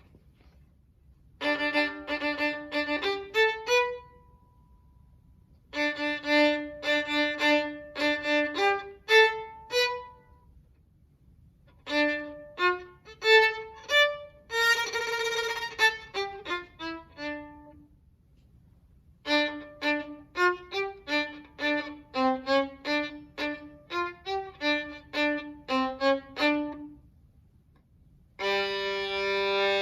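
Violin played as sound effects: four quick runs of short bowed notes with pauses between them, several ending in a falling run of notes. There is a scratchy, noisy bowed stretch near the middle, and a held two-note bowed sound near the end.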